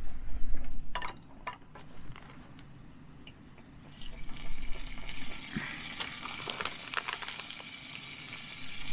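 Berner Würstel (bacon-wrapped sausages) going into a hot frying pan on a gas-canister camping stove, with a few clicks of the pan about a second in. The meat starts to sizzle suddenly about four seconds in, a steady hiss with many small crackles.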